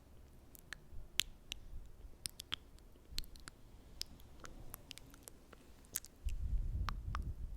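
Close-miked ASMR mouth sounds: scattered sticky, wet clicks and smacks at an irregular pace. From about six seconds in, a louder low rubbing rumble joins them.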